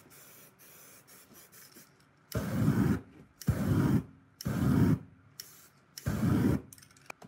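Four short bursts of flame from a spray can ignited into a torch, each about half a second long with a deep rumble, with a weaker burst between the third and fourth.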